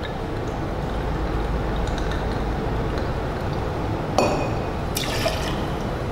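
Bourbon pouring from a bottle's pour spout into a steel jigger, a steady stream of liquid, for a 2-ounce measure. About four seconds in comes a sharp clink, then a short metallic jingle as the jigger is tipped into the mixing glass.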